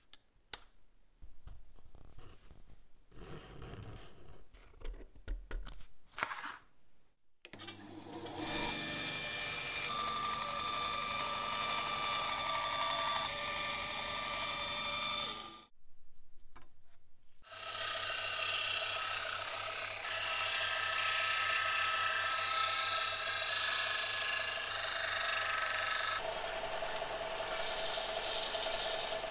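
Scraping and handling noises on parts, followed by a small power tool running steadily in two separate stretches, each with a high whine, split by a brief gap.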